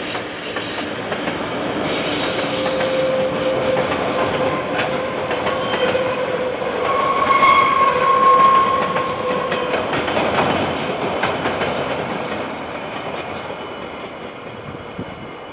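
KiwiRail freight train of container wagons rolling past, the wheels clacking over the rails. It grows louder to a peak about halfway through, with a few steady whining tones there, then fades as the last wagons go by.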